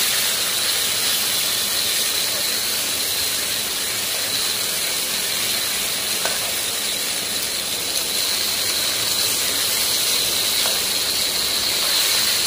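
Masala-coated rohu fish pieces and onions sizzling steadily in oil in a kadai on a low flame. The metal spatula gives a couple of light clicks against the pan.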